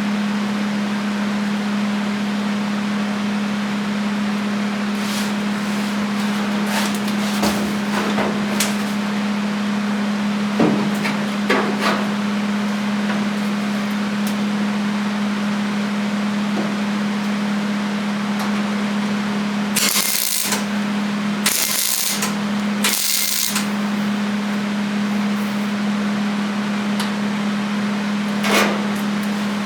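Metal body work in a workshop: a steady low hum throughout, scattered light taps and knocks, and three short harsh hissing bursts in quick succession about two-thirds of the way in.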